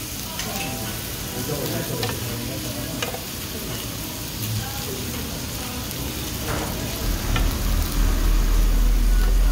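Sliced frozen pork belly and kimchi sizzling on a foil-lined grill pan, with a few sharp clicks of metal tongs turning the meat. A loud low rumble comes in about seven seconds in.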